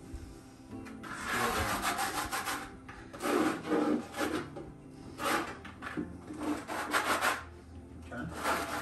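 Dry powder poured and shaken from a bag into a plastic bucket, a rushing hiss that comes in about five separate bursts.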